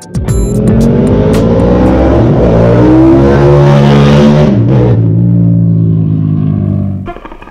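2021 Ducati Panigale V4 accelerating away through its Termignoni 4 USCITE four-outlet exhaust. The engine note climbs in pitch and falls back twice, about two and a half and four and a half seconds in, then fades near the end.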